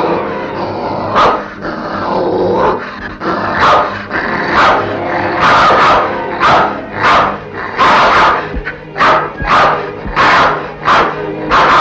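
A dog barking again and again over orchestral film-score music. The barks begin about a second in and come faster toward the end.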